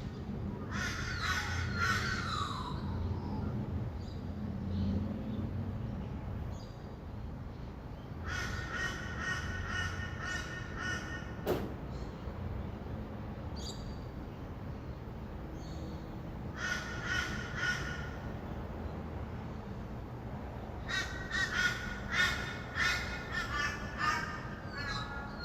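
Rainbow lorikeets calling in four bouts of a few seconds each, over a steady low rumble of distant traffic, with one sharp click near the middle.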